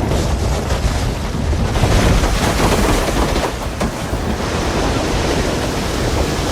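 Avalanche sound effect: a continuous deep rumble under a rushing roar of sliding snow, swelling about two seconds in, with faint crackles of breaking ice and debris.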